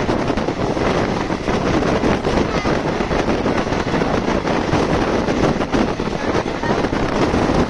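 Running noise of a moving express passenger train heard from an open coach door: steady wheel-on-rail rumble with dense rattling, and wind buffeting the microphone.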